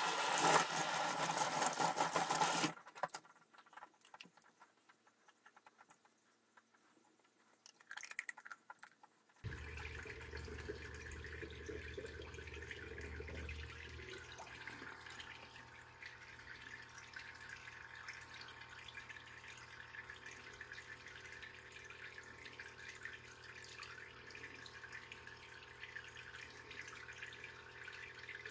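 Kitchen tap running onto a 3D-printed plastic filter part in a stainless-steel sink, stopping about three seconds in. After a quiet stretch, the steady hum and water noise of an aquarium's running pump and circulation come in, the hum easing off partway through.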